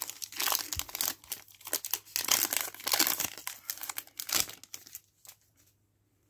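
Foil trading-card pack wrapper crinkling as it is torn open and peeled back by hand; the crinkling stops about five seconds in.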